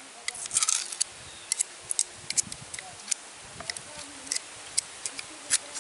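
Knife blade clicking and scraping against freshwater snail shells as they are pried and cracked open by hand: a quick, irregular series of sharp clicks.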